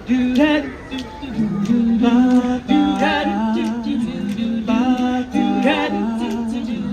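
Vocal group singing wordless harmony: several voices hold notes with vibrato above a steady low held note.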